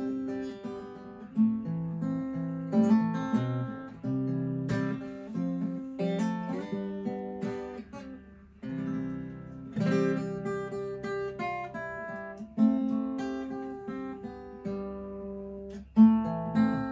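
Background music: an acoustic guitar picked and strummed, each note ringing out and dying away.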